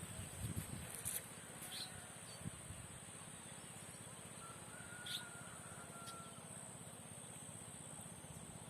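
Steady high-pitched drone of insects, with a few short bird chirps, one about a second and a half in and another about five seconds in.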